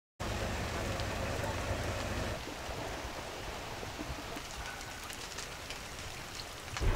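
Steady light rain falling, with scattered drops ticking. A low rumble runs under it for the first two seconds or so.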